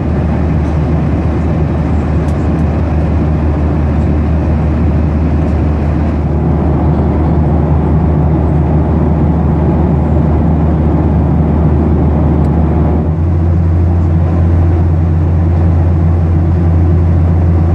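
Steady cabin drone of a Boeing 737-800 in cruise: CFM56-7B engine and airflow noise with a strong low hum, which shifts slightly in pitch about thirteen seconds in.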